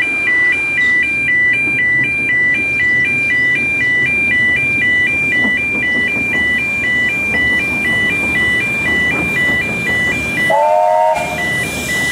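Level crossing alarm sounding a steady warbling two-tone, switching between its two notes about twice a second, with the low rumble of an approaching NG/G16 Garratt steam locomotive and train beneath. About ten and a half seconds in, the locomotive gives one short whistle blast.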